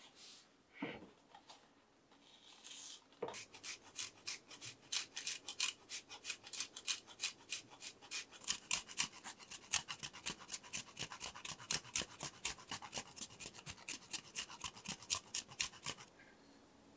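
A block of Parmigiano cheese grated on a stainless rasp grater: quick, even scraping strokes that start about three seconds in and stop shortly before the end.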